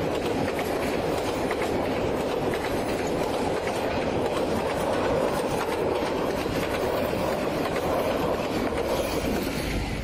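Intercity passenger train coaches rolling past close by: a steady rumble of steel wheels on the rails with fine rapid clicking of the wheels.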